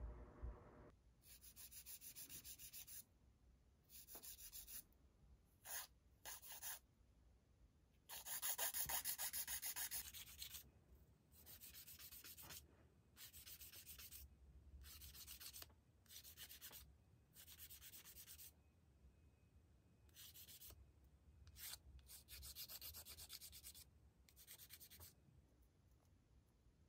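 Repeated short bouts of quick, scratchy rubbing strokes from nail tools worked against a surface, each bout lasting a second or two with short pauses between. The longest and loudest bout comes about eight to ten seconds in.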